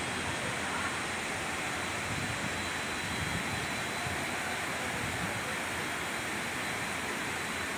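Fast-flowing floodwater rushing in a torrent, a steady, even noise without breaks.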